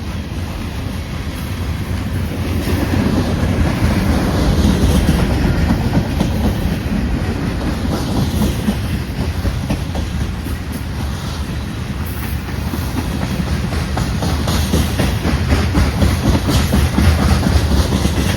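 Freight train cars rolling past at close range, their wheels clicking over the rail joints above a steady rumble.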